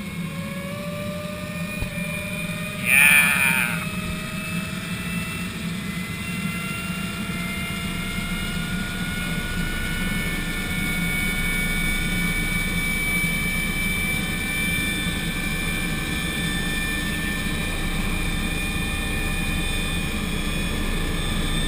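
Eurocopter Bo 105 helicopter heard from inside the cabin: its turbine engines and turning rotor make a steady hum, with whining tones that slowly climb in pitch. About three seconds in, a loud, wavering, voice-like cry lasts about a second.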